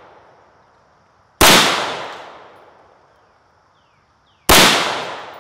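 Two very loud rifle shots, about three seconds apart, from an AR-15 in 5.56/.223 fitted with a muzzle brake, each ringing off in a long echo.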